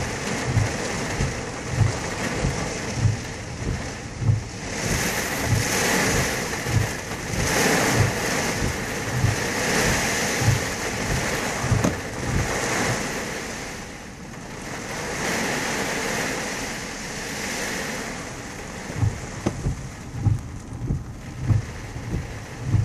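Heavy rain pelting the car's roof and windshield, surging and easing in gusts every couple of seconds, with the windshield wipers sweeping. A steady low pulse, about one and a half beats a second, runs under it, stops about halfway through and returns near the end.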